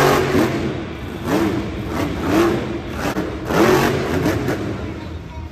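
Engine revving up and down several times, its pitch rising and falling over a steady rumble, heard alongside a toy monster truck.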